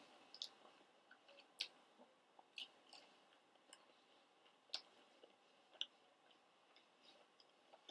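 Faint, sparse mouth clicks of someone quietly chewing a chicken nugget: about five short ticks over near silence.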